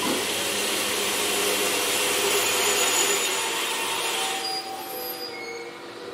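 205 series 3100 electric train rolling slowly past on the station track, with the running noise of its wheels on the rails. The noise eases about four and a half seconds in, leaving a few faint steady tones.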